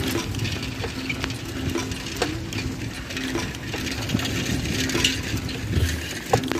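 Bicycle riding over a rough dirt road: a steady low rumble with frequent small rattles and clicks from the bike.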